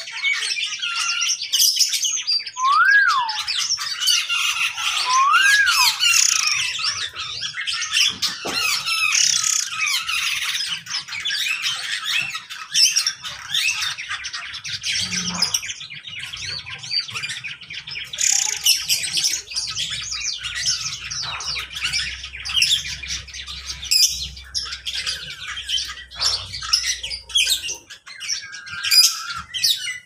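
Many cage birds of mixed species in an aviary chirping, twittering and squawking together in dense overlapping chatter. Two clear whistled notes, each rising then falling, stand out about three and five and a half seconds in.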